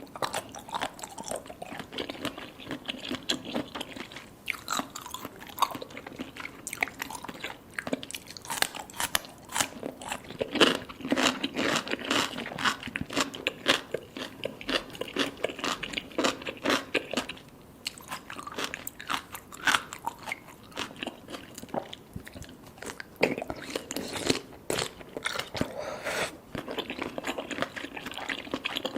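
Close-miked chewing and biting of baby cuttlefish: a dense run of soft, crunchy bites and chews, several a second, with a couple of brief pauses.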